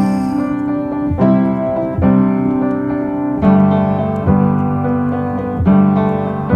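Background pop song in an instrumental stretch between sung lines: piano chords struck about once a second, each ringing on until the next.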